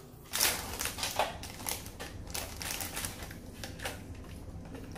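Crisp roasted seaweed sheets crunching and crackling as they are bitten and chewed, in quick irregular crackles; the loudest come about half a second and a second in.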